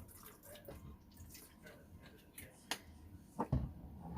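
Lime juice being squeezed out, with faint drips and small clicks. A few louder knocks come near the end, the last one a sharp click.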